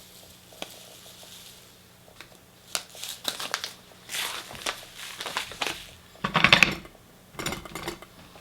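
Dry loose-leaf tea being tipped and shaken into a stainless steel tea infuser: a series of short rustling bursts, with the loudest clatter about three-quarters of the way through.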